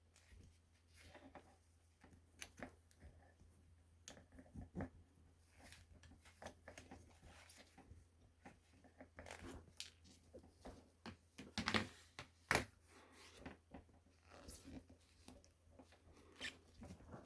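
Hands working on the heater's parts and wiring: scattered clicks, taps and rustles, with two louder clicks about twelve seconds in, over a low steady hum.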